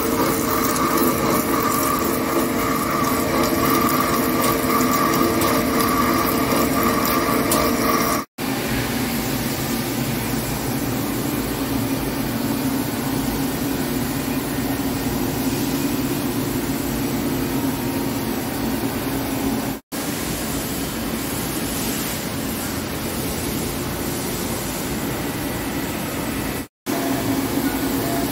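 Heavy CNC lathe turning alloy cast steel: steady machining noise with a held hum. It cuts out abruptly three times, and after the first break, about eight seconds in, the hum sits lower in pitch.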